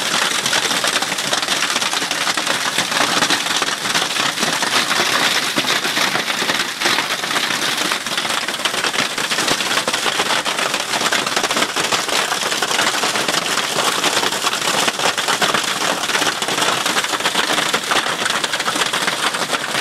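Hail and heavy rain pelting down, a steady, dense clatter of countless fine ticks that does not let up.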